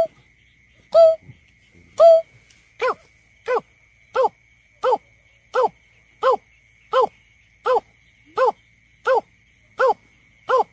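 Greater painted-snipe calling: a series of short, hollow hooting notes. Three louder notes come about a second apart, then a steady run of about one and a half notes a second.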